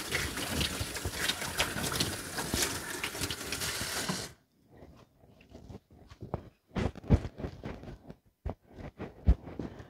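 Kitchen faucet running into the sink while hands are washed under it, shutting off suddenly about four seconds in. A few soft knocks and handling sounds follow.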